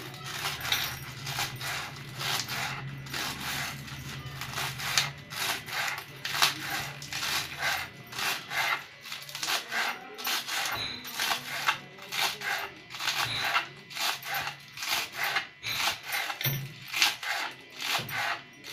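Kitchen knife chopping spring onions on a plastic chopping board: quick, regular strokes, each a short crisp cut ending in a tap on the board, a few per second.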